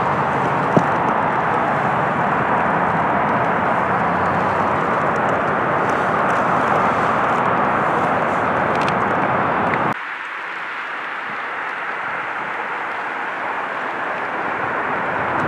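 Steady rushing outdoor background noise with a single short click just under a second in; about ten seconds in it drops suddenly to a quieter hiss.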